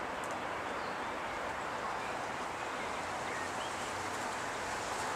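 Slovenian Railways class 312 Siemens Desiro electric multiple unit approaching slowly, a steady rushing of wheels on rail and running gear, with faint bird chirps over it.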